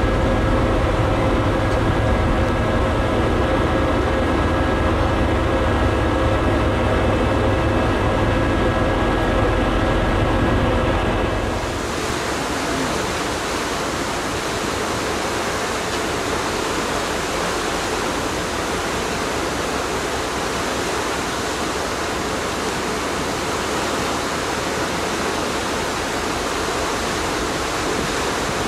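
Ferry's engines and machinery running with a steady low rumble and a few held hum tones. About twelve seconds in the sound switches abruptly to a steady rushing noise of wind and water.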